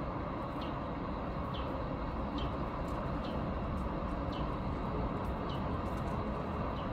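Steady outdoor background rumble, like distant traffic. Over it, a short, high, falling chirp repeats about once a second.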